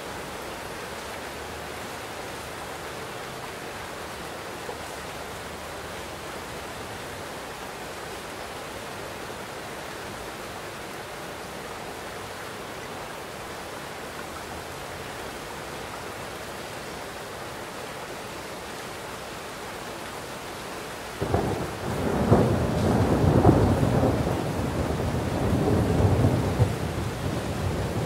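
Steady heavy rain, then about 21 seconds in a loud clap of thunder breaks suddenly and rolls on in rumbling swells.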